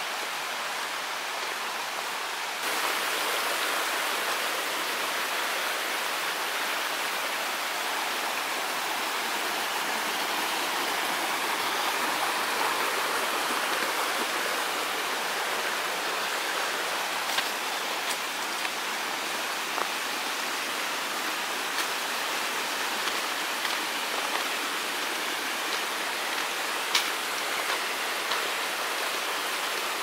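Shallow mountain stream flowing over rocks and pebbles, a steady rushing and babbling. It becomes slightly louder about two and a half seconds in.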